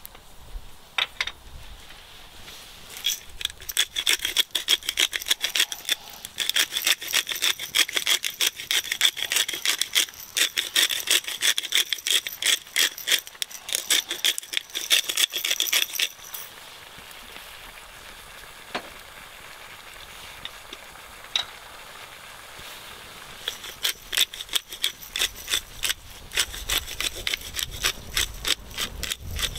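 Fast, repeated scraping strokes in two spells, the second starting after a pause of several seconds.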